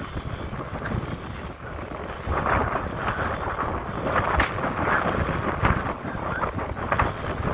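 Wind rumbling on the microphone, with a rushing noise that swells about two seconds in, and a single sharp pop about four and a half seconds in.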